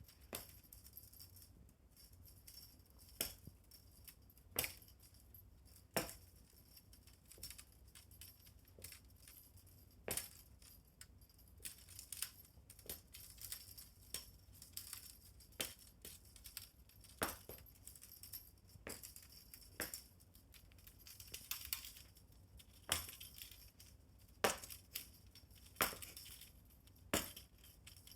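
Fishing-rod pet toy being batted and pulled about: irregular light metallic jingles and clicks, one every second or so and busier near the end, over a faint low hum.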